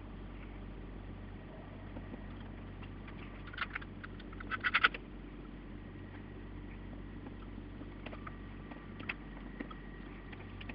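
Small metallic clicks and taps of screws and a screwdriver as the back plate is screwed onto the graphics card, over a faint steady hum. A couple of clicks come about three and a half seconds in, then a quick flurry just before five seconds, the loudest part, and a single click later on.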